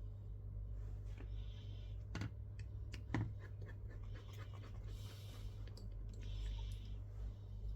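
Small clicks and scratches of hand tools working on a smartphone, with a louder click about three seconds in. Breathing is heard every two to three seconds over a steady low hum.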